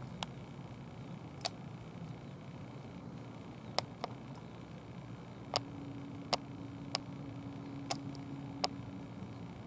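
Faint steady low hum with about a dozen sharp, short clicks at irregular intervals over it; a steady low tone joins the hum about halfway through.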